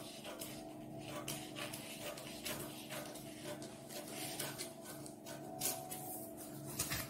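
Scissors snipping through pattern paper, a steady run of short cuts about two a second, with the paper rustling as it is fed along the curve.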